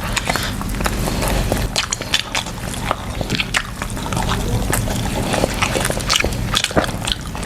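Wet close-up eating sounds of sauce-coated seafood: irregular smacks, clicks and squelches.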